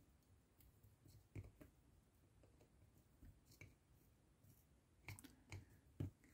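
Faint, scattered small clicks of plastic and metal parts of a wing-mirror motor housing being handled and prised with a small hand tool, against near silence.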